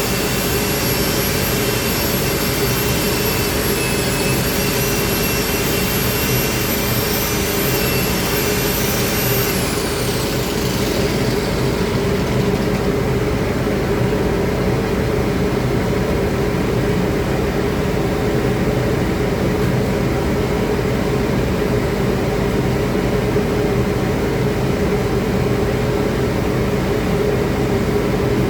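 Steady, loud machinery drone with a high whine on top. About ten seconds in, the whine glides down and fades, as a motor spinning down does, while a lower steady hum carries on.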